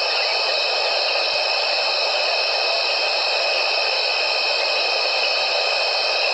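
A dense, steady evening chorus of insects, with several unbroken high trilling bands layered over a continuous hiss.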